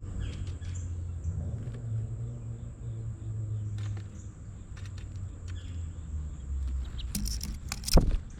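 Small songbirds giving a few short chirps over a steady low rumble, with a cluster of clicks and one sharp knock near the end.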